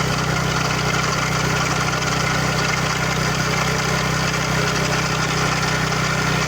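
TVS Ntorq 125 scooter's single-cylinder engine running steadily, making the abnormal noise the owner complains about.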